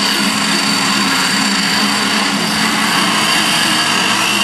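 Hydroplane racing engine running at a steady, unchanging pitch.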